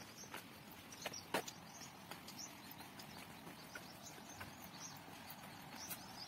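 Footsteps on a dry dirt path strewn with twigs and leaves, with a sharper click about a second and a half in. Small birds chirp repeatedly in the background.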